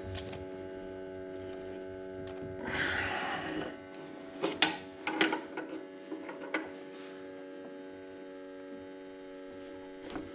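A steady electrical hum, with a short rush of hiss about three seconds in and a few sharp clicks and knocks a little later.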